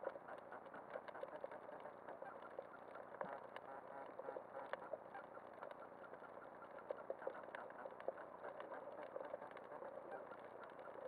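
Underwater ambience picked up by a camera under the sea: a fine, continuous crackle of clicks with a faint, wavering hum beneath it.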